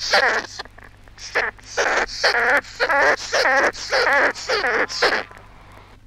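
Squirrel glider calling: a quick series of about a dozen short, wavering calls, roughly two to three a second, stopping about five seconds in.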